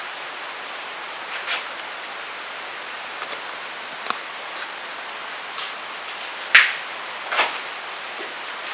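Steady hiss with a few scattered clicks and short rustles; the loudest is a sharp click about six and a half seconds in, followed by a brief rustle.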